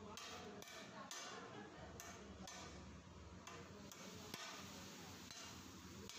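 Faint scattered clinks and knocks of stainless steel tumblers, bowls and cutlery on a table, about a dozen irregular taps over a low background hum.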